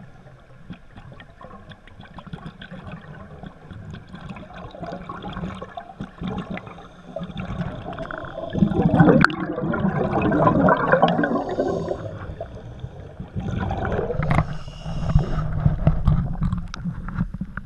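Bubbling and gurgling water heard from underwater through a camera's waterproof housing as a scuba diver ascends: a low crackling wash, then a much louder rush of bubbles from about eight and a half to twelve seconds in, then more gurgling and sloshing as the camera reaches the surface by the kayak.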